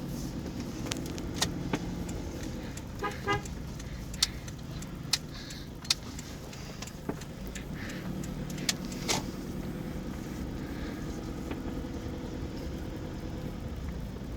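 Toyota Fortuner's 2KD-FTV 2.5-litre four-cylinder turbodiesel running steadily, with a few sharp clicks scattered through the first ten seconds and two short beeps about three seconds in.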